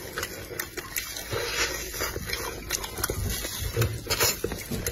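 Close-up wet chewing and lip smacking as a person eats a sauce-glazed, sticky-rice-stuffed chicken wing, with many short crackling clicks.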